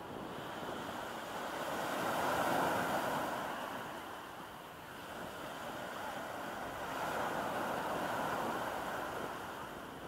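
Small sea waves breaking and washing up a sandy shore, the surf swelling about two seconds in and again about seven seconds in.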